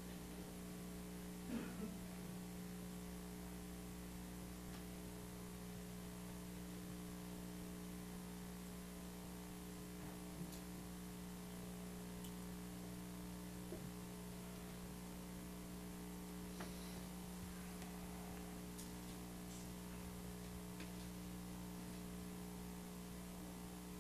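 Faint, steady electrical mains hum from the room's microphone and recording system, with a few faint knocks and rustles, the most marked about a second and a half in.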